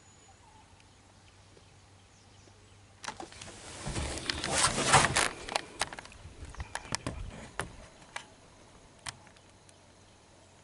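Rustling and knocking of a handheld camera being moved about, starting about three seconds in, loudest in the middle, then trailing off into scattered sharp clicks. A few faint bird chirps come before it.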